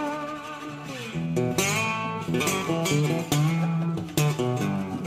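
Background music: guitar playing a melody of plucked notes.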